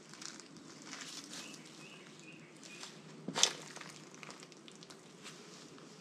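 Slow footsteps crunching on a gritty dirt and debris floor, with one sharper knock about three and a half seconds in.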